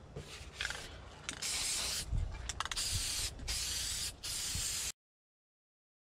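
Aerosol can of vinyl-and-plastic refinishing paint spraying in several short bursts of hiss, then the sound cuts off abruptly just before five seconds in.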